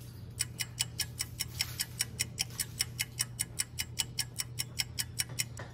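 Ticking clock sound effect: a fast, even tick-tock of about five ticks a second, starting just under half a second in and stopping shortly before the end.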